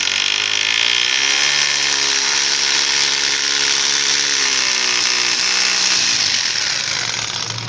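Electric drill boring into a brick wall, its motor running at a steady pitch with a harsh grinding hiss, then fading near the end.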